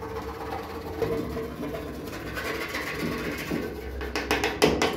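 Graphite pencil scratching on sketchbook paper in shading strokes, with a run of quick, rapid strokes near the end.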